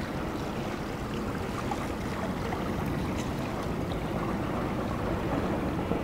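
Steady rushing noise of harbour water and a small sailing yacht passing close by under engine, its sails furled.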